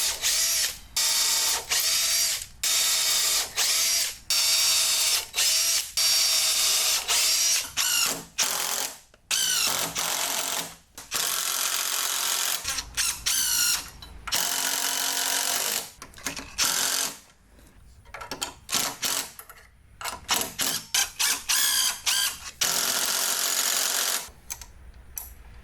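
Power drill driving screws in a long run of short trigger bursts, the motor's pitch rising and falling as it starts and stops.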